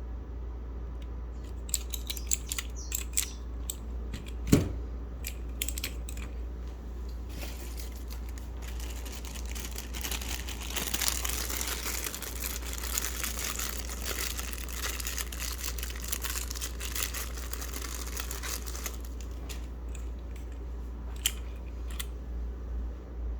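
Keyboard parts being handled during disassembly: scattered sharp plastic clicks and one louder knock, then about ten seconds of dense crinkling rustle, then a few more clicks. A steady low hum runs underneath.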